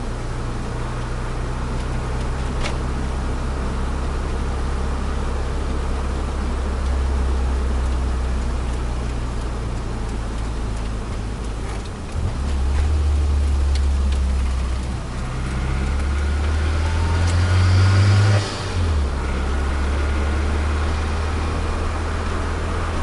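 Nissan Micra turbo engine running at low revs with road noise, heard from inside the cabin while driving. The engine note dips briefly about 12 seconds in and then pulls louder. It rises again and drops suddenly near the end.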